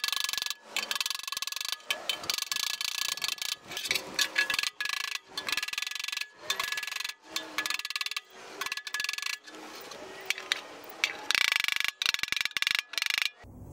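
Body hammer striking a door-skin flange against a hand-held dolly: runs of quick, ringing metallic taps with brief pauses between them. The blows are closing the hem of a new door skin over the end of an E-type Jaguar door frame.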